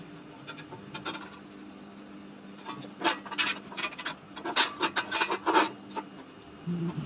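Rasping scraping strokes on metal: two short strokes, then about a dozen quick ones in a row around the middle, over a steady low hum.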